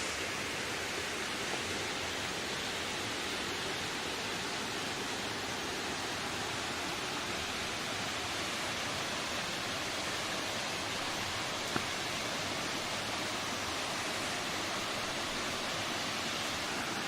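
Steady rushing of wind, an even hiss with no gusts or pitch, with one brief click about twelve seconds in.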